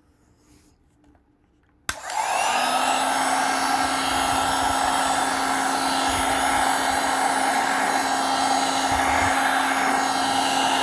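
Handheld hot-air blower switched on with a click about two seconds in, then running steadily: a rushing of air with a steady whine over it. It is heating the phone's screen glass to soften the adhesive.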